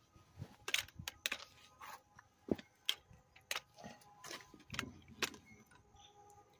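Irregular light clicks and taps, about a dozen spread unevenly, from footsteps and camera handling as a person walks around a scrap pile.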